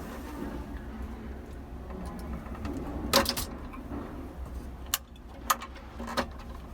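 Clicks and clinks of tools and small metal parts as a crane game's claw is being taken apart: a loud cluster of sharp clicks about three seconds in, then three single clicks a little over half a second apart near the end, over a low steady hum.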